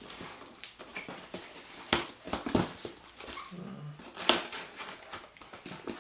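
A cardboard shipping box being opened by hand: a series of short rips, scrapes and rustles of tape and cardboard, the sharpest about two seconds in and again just after four seconds.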